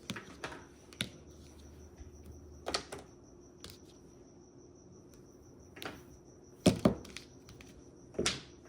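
Mahjong tiles clicking and clacking as they are handled and set down, in scattered sharp knocks about eight times, the loudest a quick pair near the seven-second mark.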